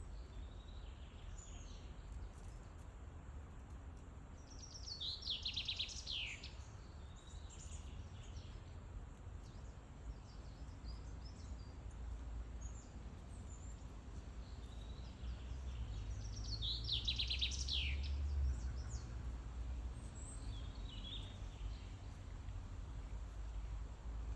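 Songbirds singing: two loud song phrases of rapid notes falling in pitch, about five seconds in and again near seventeen seconds, with scattered softer chirps in between, over a steady low rumble.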